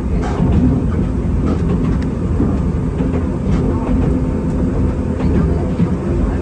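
Enoden electric train running on the line, heard from inside the front car: a steady rumble of wheels and running gear with scattered clicks from the track.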